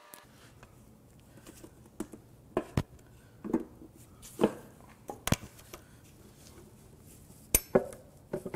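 Irregular sharp metal knocks and taps as the cast valve cover of a Toyota 2GR-FE V6 is pried and rocked loose from the cylinder head, where sealant and a dowel hold it. The loudest knocks come a little past halfway and near the end.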